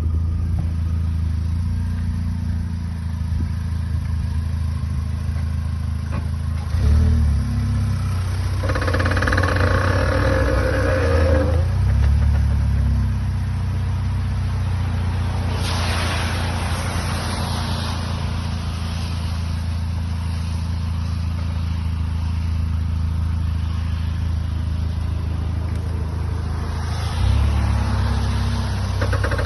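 Vauxhall Astra J VXR's turbocharged four-cylinder engine running as the car pulls off with the steering turned, with a thump about seven seconds in and louder stretches after it. This is the creaking and knocking from the front wheels that was finally cured by changing the gearbox oil.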